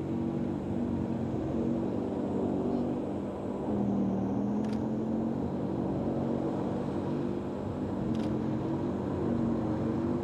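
T-64BV tank's 5TDF two-stroke opposed-piston diesel engine running under load as the tank drives through mud: a steady rumbling drone whose pitch wavers and dips.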